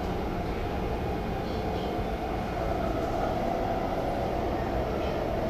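Interior running noise of an MTR IKK-Train (SP1900 electric multiple unit) at speed: a steady low rumble of wheels on rail, with a continuous hum from the running gear.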